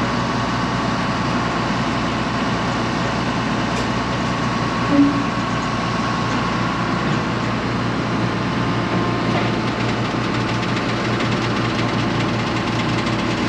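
Heavy farm diesel engine idling steadily, with one short louder blip about five seconds in.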